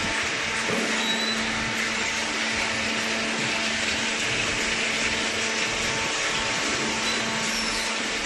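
Cardboard baler with its feed conveyor running: a steady mechanical whir with a constant low hum underneath.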